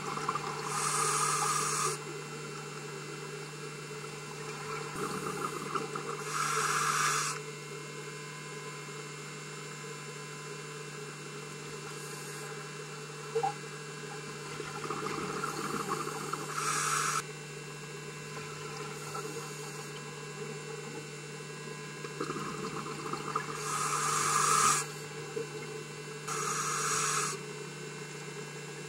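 Scuba diver breathing through a regulator underwater: exhaled bubbles burst out in hissing gushes of about a second, five times, several seconds apart, over a steady low hum.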